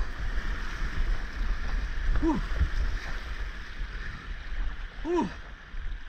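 Rushing whitewater of a spring-high river streaming around a kayak's bow, a steady wash of water noise over a low rumble. Three short calls that rise and fall in pitch cut through: one right at the start, one a little past two seconds, and one about five seconds in.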